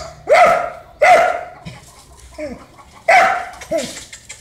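Dog barking in short, sharp barks about a second apart: about five, with two fainter ones among them, at an animal cornered under a shrub.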